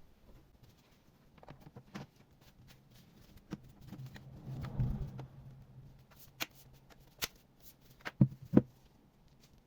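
Hands working on a laptop: scattered small clicks and taps, a dull knock with rubbing about halfway through, and two sharp clicks in quick succession near the end.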